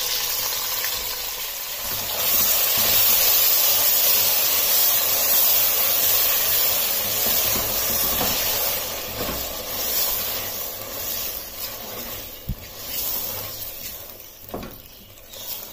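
Wet onion-tomato masala paste sizzling in hot oil with frying potatoes and peas in a stainless steel pot, stirred and scraped with a silicone spatula. The sizzle is strongest in the first half and dies down toward the end, with a few light knocks of the spatula.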